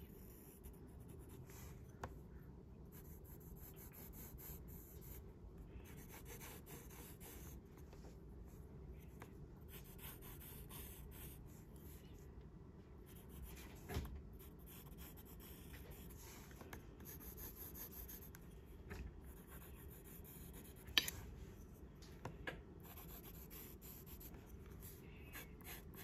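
Graphite pencil drawing on paper: faint scratching strokes that come and go, with a few sharp clicks, the loudest about twenty-one seconds in.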